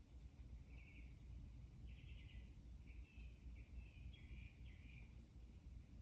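Faint bird calls: several short, rapid trills, starting about a second in and ending near five seconds, over a low steady background rumble.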